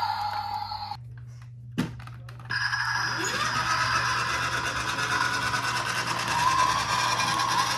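A toy emergency vehicle's electronic sound effect: a steady electronic hum of several tones cuts out, a sharp click follows about two seconds in, and a new steady electronic sound starts with a brief rising glide.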